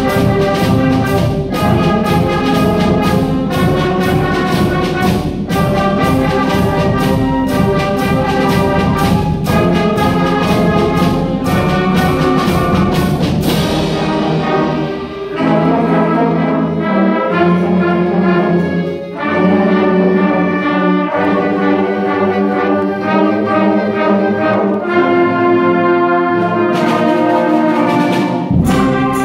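School concert band playing: woodwinds and brass with percussion, the drums striking a steady beat for about the first half. About halfway the drums and lowest notes drop out to a thinner passage of held chords, and the sound fills out again near the end.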